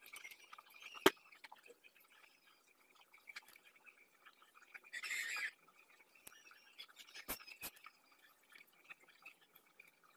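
Quiet handling sounds of a small cosmetic bottle and hands: a sharp click about a second in, a short hiss around the middle, and two more ticks a little later, over a faint steady high whine.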